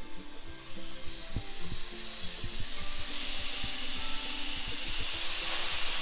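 Teriyaki-glazed flathead fish skewers sizzling in a hot, lightly oiled frying pan on a gas camp stove, the sizzle building as more skewers are laid in, with a few light knocks as they are set down. Background music plays underneath.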